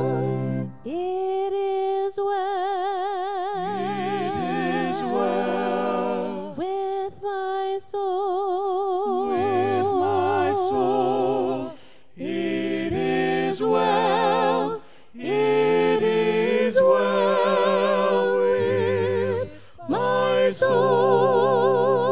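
Worship song being sung: voices holding long notes with a wide, wavering vibrato, in phrases broken by brief pauses.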